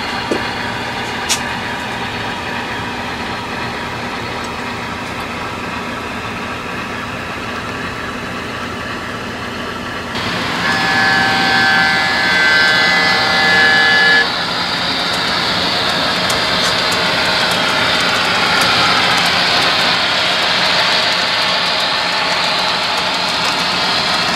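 HO-scale model train running along the layout track with a steady rolling rumble and a couple of small clicks early on. About ten seconds in, a multi-tone diesel locomotive horn sounds for about three and a half seconds.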